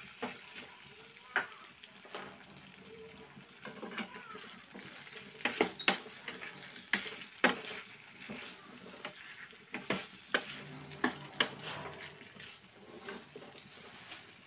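A metal ladle scraping and knocking against a frying pan as pumpkin chunks and onions are stirred in hot oil, with a soft sizzle underneath. The clicks and scrapes come irregularly, a few every second or two.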